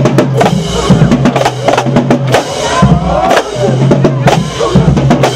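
Marching band drumline playing a fast cadence, with tenor drums, snare drums and bass drums struck in dense, loud rhythm.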